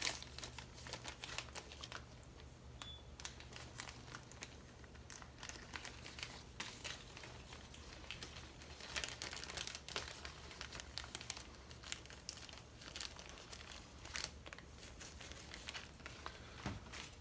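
Crinkling and many scattered light clicks from packaging and small parts being handled, over a steady low hum.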